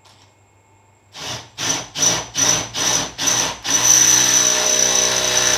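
Cordless drill boring a hole for a riv nut through the Range Rover Classic's windscreen pillar. About a second in it gives six short pulses, then runs steadily for nearly two seconds before stopping.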